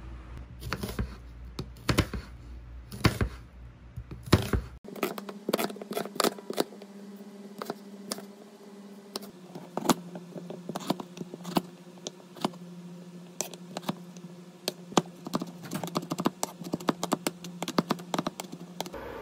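Typing on a keyboard: quick, irregular key clicks. For the first few seconds they sit over a low rumble, which breaks off abruptly about five seconds in; after that a steady low hum runs behind them.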